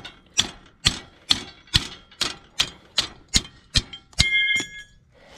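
A hammer striking a worn steel cultivator shovel on its shank, about ten sharp blows a little over two a second, knocking the shovel loose. About four seconds in, a last clang rings with a metallic tone for about half a second as the shovel comes free.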